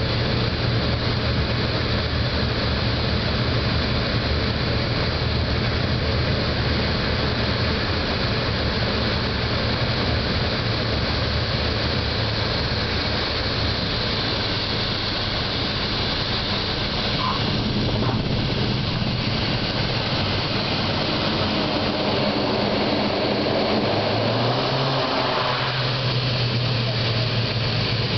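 Engine and propeller drone of a small high-wing propeller plane, heard inside the cabin as it rolls on the runway after landing. The drone is steady and loud, and its low hum steps up in pitch near the end as the engine power changes.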